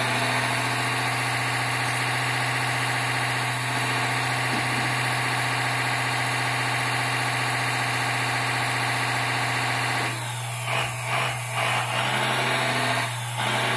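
Electric hydraulic pump of a 1/14 scale RC hydraulic excavator running with a steady whine while the boom, stick and bucket cylinders move. About ten seconds in, the steady tone breaks up into uneven surges as the load on the pump changes.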